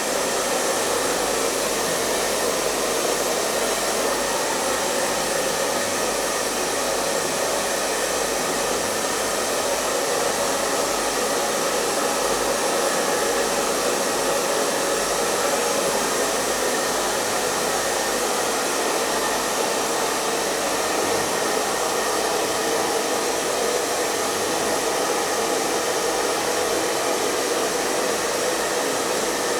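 Hair dryer running steadily: a constant, even blowing whir with no change in speed.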